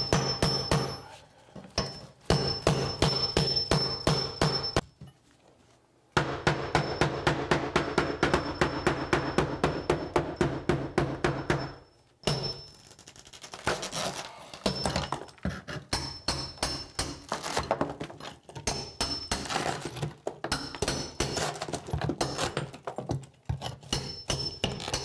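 Power chisel hammering tile and mortar off a shower wall, a fast even run of blows over a motor hum, in bursts that stop briefly about five and twelve seconds in. After that the blows are lighter and more uneven.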